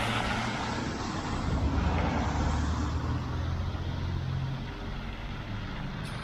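Street traffic: cars driving past close by on a wet road. A low engine rumble swells from about a second and a half in and eases off after about four seconds.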